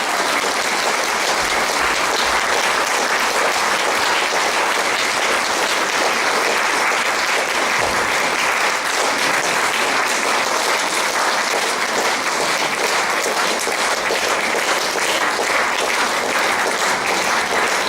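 Concert-hall audience applauding, a steady dense clapping that holds at the same level throughout.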